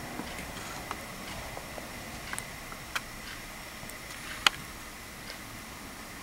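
Faint, scattered clicks of small plastic Lego pieces being handled and fitted with the fingers, the sharpest a little past the middle, over a steady low hiss.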